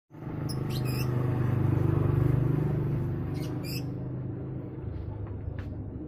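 Caged lovebirds giving a few short, high chirps, over a low steady hum that fades out after about four seconds.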